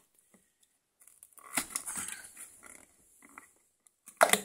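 Perforated cardboard door of an advent calendar being pushed in and torn open, with scattered crackling and rustling that starts after about a second of quiet.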